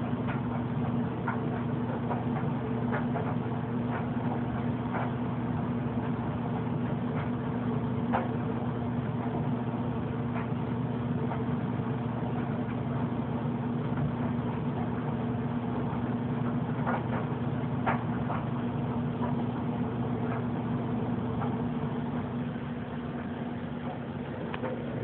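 A steady low machine hum with a few faint clicks scattered through it.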